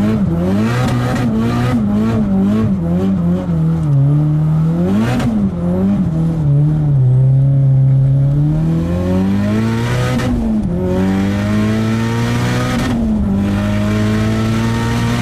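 Nissan Silvia S15 drift car's SR20DET engine heard from inside the cabin, loud, revving up through the gears as it is driven hard. The pitch climbs slowly and drops sharply at each upshift, about ten seconds in and again near thirteen seconds, then climbs again.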